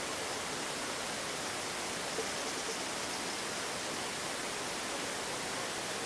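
Steady, even hiss of background noise, with one faint short tick about two seconds in.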